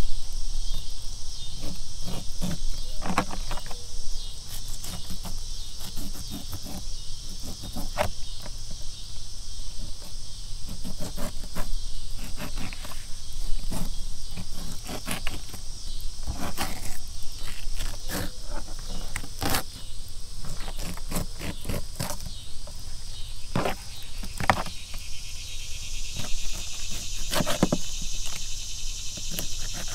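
Fillet knife cutting the rib bones out of a catfish: scattered sharp clicks and scrapes, over a steady chorus of insects that grows louder near the end.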